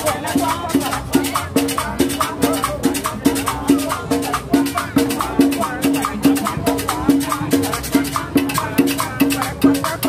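Cumbia played by a live street band: a conga drum and shaker keep a steady, quick beat over a repeating low melodic figure.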